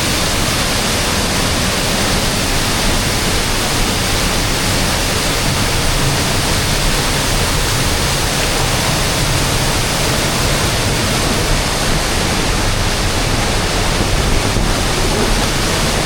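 Rushing water of a river waterfall, a loud, steady, unbroken roar of noise.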